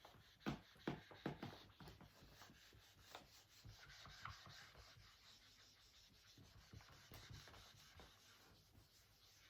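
Faint close-up writing: a run of short scratchy strokes across a surface, with a few sharp taps in the first second and a half.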